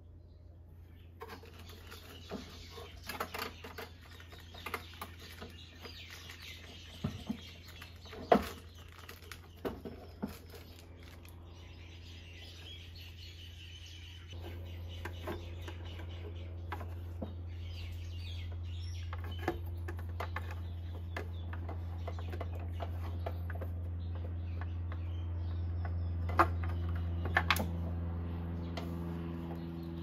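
Birds chirping, with scattered clicks and knocks from hands handling the scooter's fork stem and cables, over a steady low hum that grows louder about halfway through.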